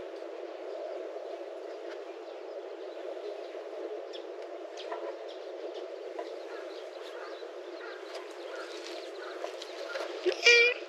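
Faint bird chirps over a steady outdoor background, then near the end a short, loud, pitched cry from a cat: the black cat snapping angrily as the tabby bites its tail.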